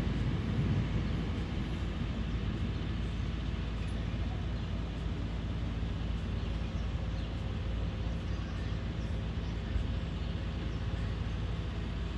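A passing train fades out during the first second or so, leaving a steady low rumble of idling vehicle engines.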